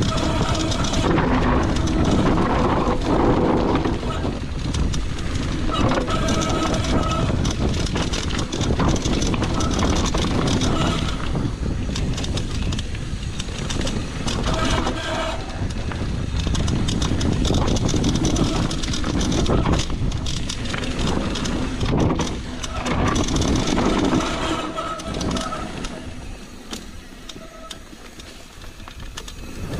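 Mountain bike descending a dirt trail: tyres rumbling over the ground and wind buffeting the microphone, with a few short squealing tones along the way. The noise dies down briefly near the end.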